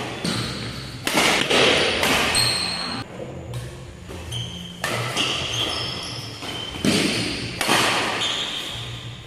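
Badminton rally: rackets striking the shuttlecock in several sharp smacks, with short high squeaks of shoes on the court floor between the shots.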